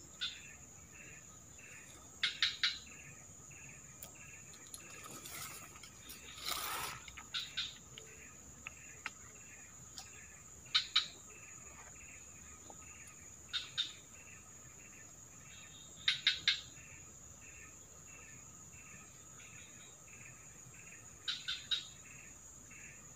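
Forest insects calling: a steady high-pitched drone with a fainter chirp repeating about twice a second underneath. Every few seconds a louder, short call comes in quick pairs or threes, and there is a brief rustle about six seconds in.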